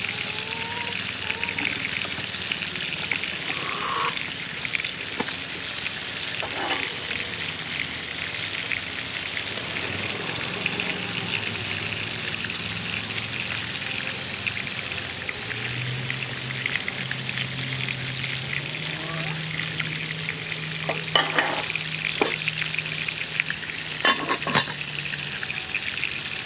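Bacon frying in a pan over a wood fire: a steady sizzling hiss with fine crackle, and a few sharp pops of spattering fat near the end. A low steady hum comes in about halfway through.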